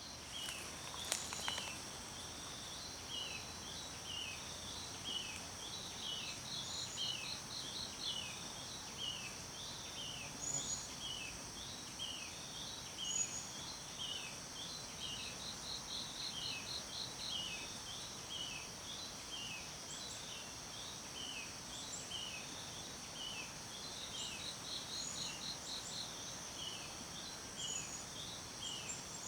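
Forest ambience: a steady high insect drone, with a bird repeating a short falling chirp about three times every two seconds and bursts of rapid pulsed calls now and then. A couple of sharp clicks about a second in.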